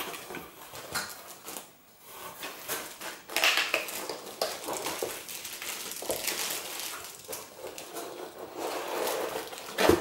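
Plastic bag crinkling and cardboard packaging rustling and scraping as a keyboard in its plastic wrap is handled and lifted out of its box, with irregular small knocks throughout.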